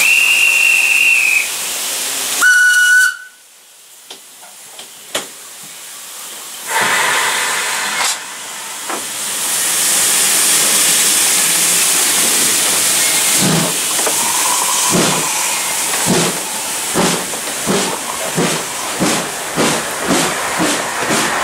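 Narrow-gauge steam locomotive sounding its steam whistle twice, a short high blast and then a briefer one, followed by hissing steam. The train then gets under way, with beats that come quicker and quicker as it gathers speed.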